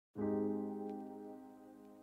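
Background music: a soft held chord that starts suddenly just after a moment of silence and slowly fades.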